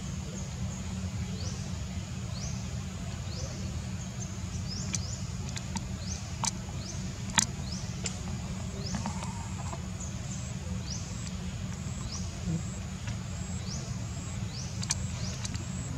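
Outdoor ambience: a short rising high-pitched chirp, from a bird or insect, repeats roughly once a second over a steady low rumble. A few sharp clicks occur, the loudest about halfway through.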